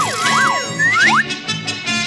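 Band music with a comic slide-whistle effect swooping up and down in pitch several times, ending on quick upward slides a little over a second in.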